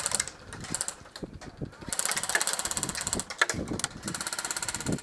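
Airsoft guns firing full-auto bursts: a fast, even mechanical rattle of rounds cycling, with a long burst about two seconds in and another near the end, plus a few short bursts before them.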